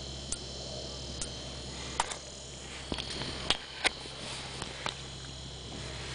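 Handling noise as the camera is moved about: several sharp clicks and knocks, loudest about three and a half seconds in, over a steady high whine and low hum.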